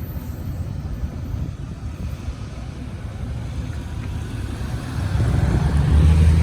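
Low rumble of a freight train as its last cars pass and fade. About five seconds in, a nearby diesel-type engine hum swells up and grows louder.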